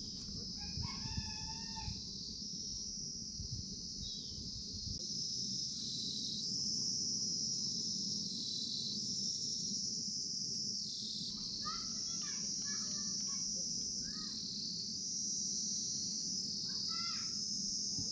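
A rooster crows once, about a second in, and more short fowl calls come in the middle and near the end. Behind them runs a high, steady insect drone that swells and fades every couple of seconds.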